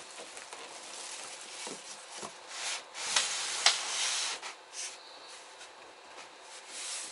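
Cardboard box packaging being pulled and scraped against the refrigerator, a rustling, rubbing noise with two sharp snaps in the middle, where it is loudest.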